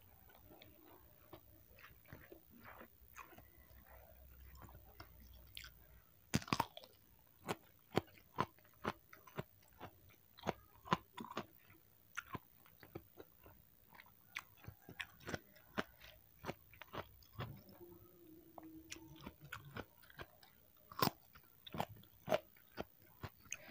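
Close-miked chewing of rice and crunchy raw vegetables: soft wet chewing at first, then from about six seconds in a steady run of sharp crunches roughly twice a second.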